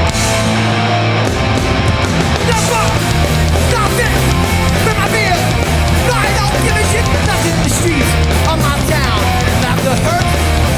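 Hardcore punk band playing live on stage: distorted electric guitars, bass and drums at full volume. The bass and drums come in together right at the start, joining the guitar intro of the song.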